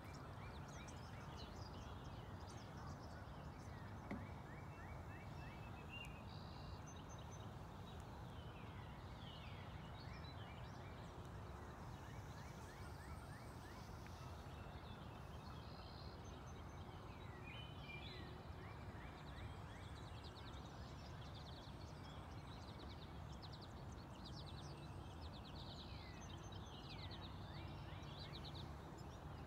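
Several songbirds chirping, trilling and whistling on and off, over a faint steady low background noise.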